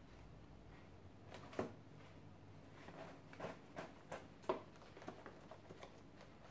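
Faint scattered ticks and rustles of a large fabric-scaled dragon puppet being handled and moved about, about ten short taps with the loudest about one and a half seconds and four and a half seconds in.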